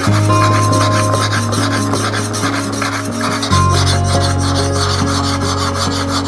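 Steel chisel being honed on a diamond sharpening plate: rhythmic back-and-forth rasping strokes of metal on the abrasive. Background music with sustained low notes plays underneath, changing note about halfway through.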